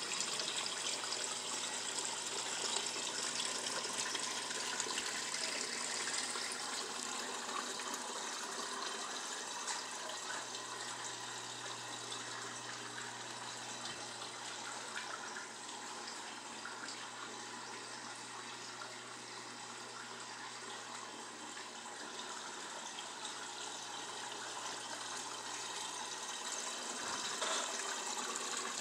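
Water from an aquarium hang-on-back filter spilling steadily back into the tank as a continuous splashing trickle. It fades somewhat in the middle and grows louder again near the end.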